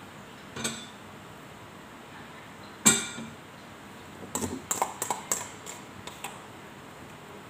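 Metal kitchenware clinking and knocking as a bowl and pan are handled: one sharp clink with a short ring about three seconds in, then a quick run of lighter clinks and knocks.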